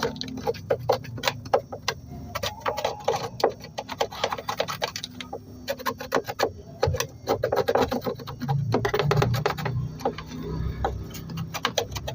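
Irregular clicks, taps and scraping, several a second, from hands working on washing machine parts as dirt is cleaned away around the leaking rubber seal.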